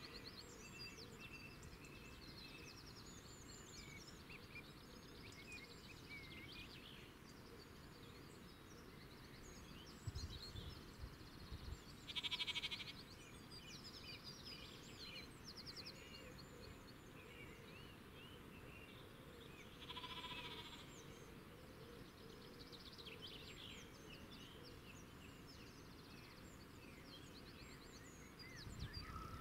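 Faint outdoor field ambience: small birds chirping and twittering on and off throughout, with two louder animal calls of about a second each, one about twelve seconds in and one about twenty, and brief low rumbles around ten seconds in and near the end.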